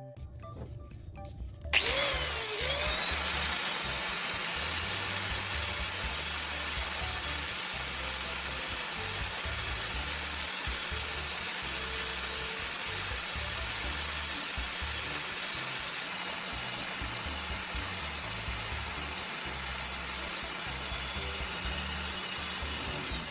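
Electric power tool starting about two seconds in and running steadily with a high whine.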